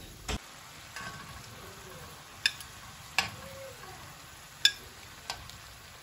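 Rolled pastries frying in shallow oil in a steel pan, a steady sizzle, with several sharp clicks of metal tongs against the pan as the rolls are turned.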